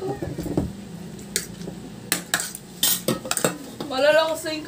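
Metal spoons and forks clinking and scraping against ceramic plates and bowls during a meal, a handful of sharp clinks. A person's voice is heard briefly near the end.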